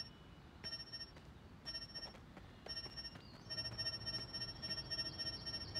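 Cartoon handheld gadget beeping as it searches: short electronic tones about once a second, then a longer, busier run of beeps in the last two seconds.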